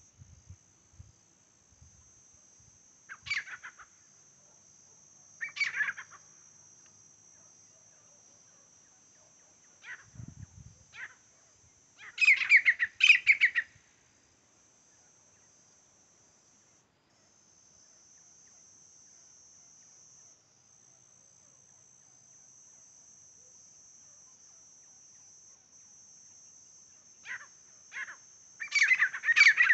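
Grey francolin calling: a few short single calls, then a loud rapid run of calls about twelve seconds in, and another loud run of repeated calls starting near the end.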